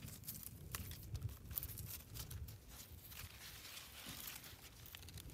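Faint rustling and crinkling of young corn leaves being handled and pulled open at the whorl, with scattered soft crackles over a low rumble.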